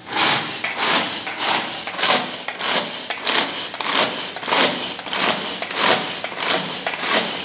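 Hand-operated vegetable chopper worked in quick repeated strokes, about two a second, its blades chopping ginger, garlic, green chillies and curry leaves in the plastic bowl.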